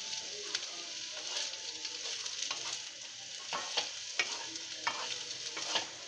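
Vegetables sizzling in hot oil in a non-stick pan as cauliflower pieces are tipped in and stirred with a wooden spatula. A steady frying hiss runs under scattered scrapes and knocks of the spatula against the pan.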